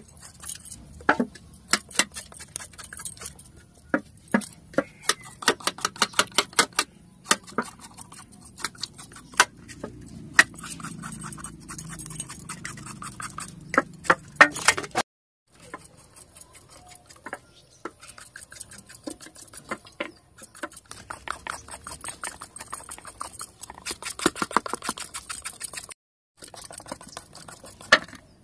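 A hand vegetable peeler scraping the skin off a pumpkin in quick repeated strokes, each one a short crisp rasp, with peelings dropping onto a steel plate. The sound cuts out briefly twice.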